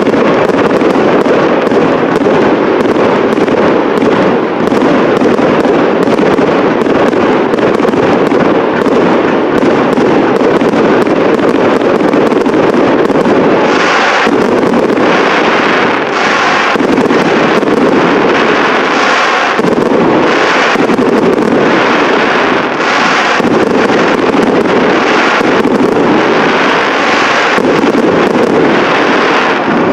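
Fireworks display: a dense, continuous barrage of shells bursting in overlapping bangs. From about halfway through, separate strong bursts stand out roughly once a second.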